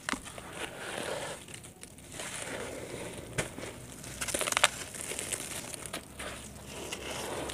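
Gritty dry red dirt crunching and crumbling between bare hands as it is broken up into muddy water, with wet squishing of the paste. A few sharper cracks stand out, the loudest a little past halfway.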